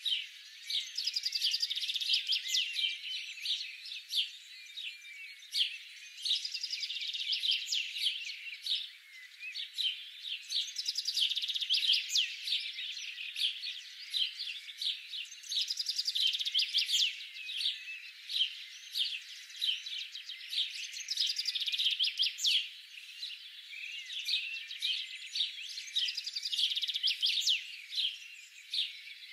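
A chorus of small songbirds chirping and twittering continuously, many quick high-pitched chirps and trills overlapping.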